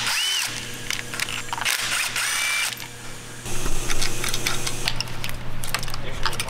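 Cordless drill-driver spinning a socket in two short whirs, each rising and falling in pitch, as it runs out bolts on top of an engine. Then comes a run of small metallic clicks and clinks as the loosened parts are handled.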